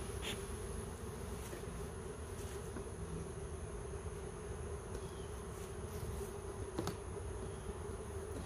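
Honeybee colony in an opened hive buzzing loudly and steadily, the loud buzz of a disturbed colony that the beekeeper takes as the bees' sign that it is time to close the hive. A single sharp click about seven seconds in.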